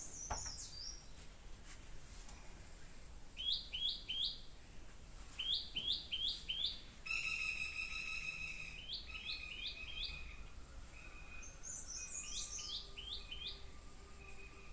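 Birds chirping: quick runs of three or four short, high, falling notes repeated every couple of seconds, with a longer, steadier call about seven seconds in.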